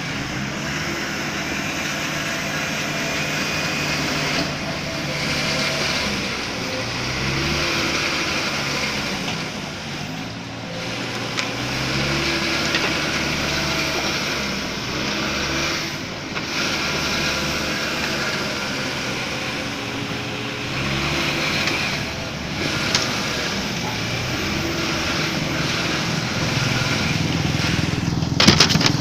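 Heavy construction machinery's diesel engine running, its revs rising and falling again and again as it works. A short clatter of knocks comes near the end.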